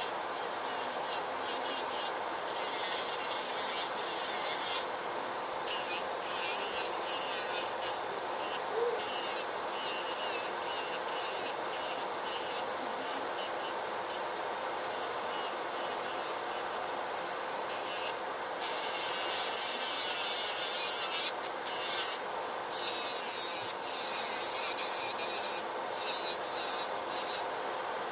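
Makartt nail dust collector's fan running steadily while an electric nail drill grinds acrylic off a fingernail. The scratchy grinding comes and goes as the bit touches the nail, louder and more uneven in the last several seconds.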